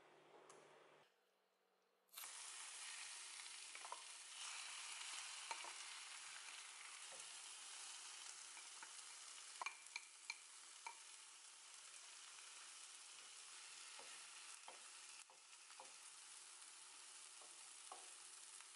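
A vegetable mixture hits a hot frying pan about two seconds in and sizzles steadily. Occasional short clicks and scrapes come from the bowl and a wooden spatula against the pan, a cluster of them around the middle.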